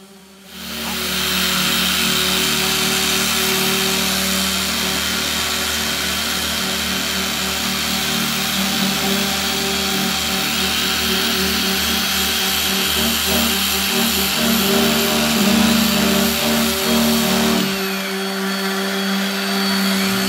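A machine running steadily: a constant hiss with a steady hum and whine. It starts about half a second in, and its deep rumble drops away near the end while the rest keeps going.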